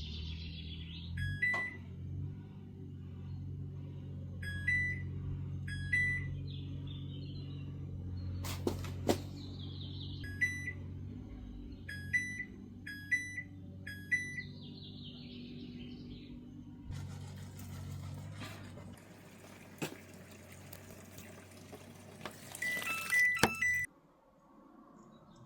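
HAVA T01 portable washing machine beeping as its control-panel buttons are pressed, about nine short beeps, some in quick runs, over a steady low hum from the machine. The hum cuts off suddenly near the end.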